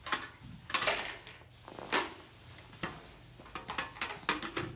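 Scattered light clicks and knocks of a hard plastic toy cement mixer truck being handled and set down on a play mat.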